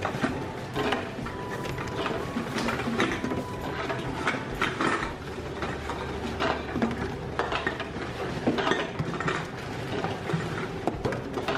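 Reverse vending machine taking in empty plastic bottles one after another: a steady low hum from its mechanism, with repeated knocks and rattles about once a second as each bottle is pushed in and carried off.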